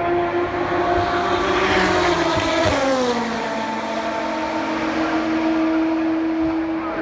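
A race car passes at high speed, its engine note dropping sharply in pitch as it goes by about three seconds in, over a steady engine tone that runs throughout.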